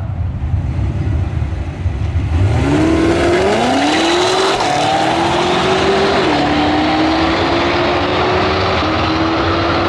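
A drag-racing car's engine launching off the line about two and a half seconds in, its pitch climbing steeply, then dropping back at each upshift and climbing again as it pulls away down the strip.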